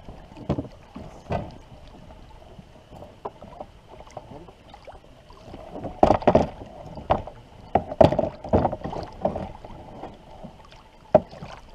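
Irregular knocks and clunks of canoe paddles and packed gear being handled against a loaded canoe, a few early on and a busier cluster around six to nine seconds in.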